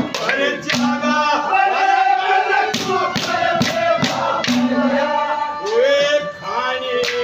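A man singing a Haryanvi ragni in a loud, high voice with long held, sliding notes, accompanied by harmonium and a few sharp drum strokes.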